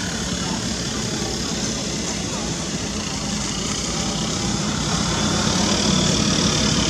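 A motor vehicle's engine running steadily: a low hum under an even hiss, growing slightly louder toward the end.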